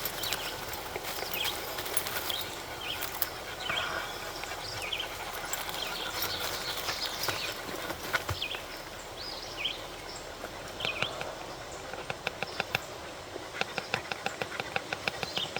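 Short high bird chirps against steady outdoor background noise, with scattered light clicks and a quick run of ticking over the last few seconds.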